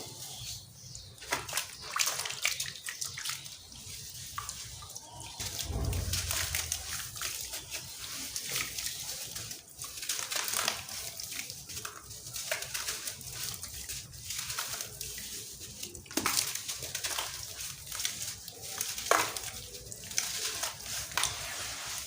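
Crunchy sand cement crumbling: a dense run of small crackles and crunches, with a few sharper cracks standing out.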